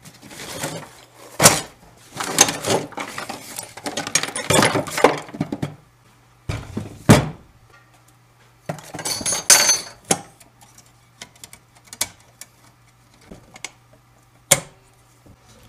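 Tools and metal objects being handled, moved and set down on a wooden workbench while a portable band saw is put in place: irregular clinks, clatters and sharp thunks with short quiet gaps between. There is a faint steady hum underneath.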